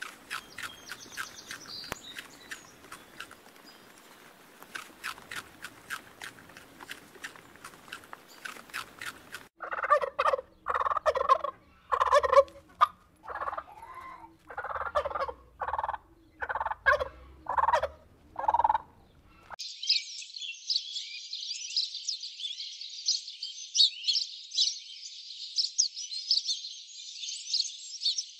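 Domestic turkeys gobbling in a rapid run of short calls for about ten seconds, after faint clicking at the start. House sparrows chirping busily follow near the end.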